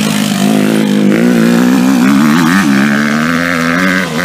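Motocross bike engine revving, its pitch rising and falling as the throttle is worked, with a higher steady whine joining about a second in and stopping near the end.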